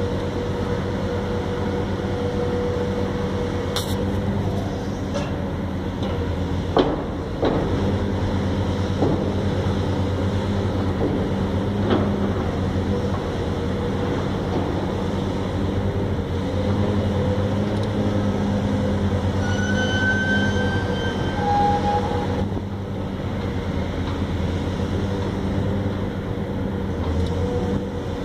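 Long-reach demolition excavator working on a steel-framed building: its diesel engine drones steadily under load, with a few sharp bangs as the structure is broken apart, the loudest about seven seconds in. A brief high squeal comes about twenty seconds in.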